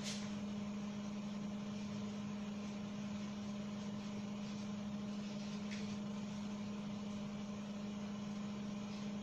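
Steady low background hum with one constant tone and a faint hiss, unchanging throughout.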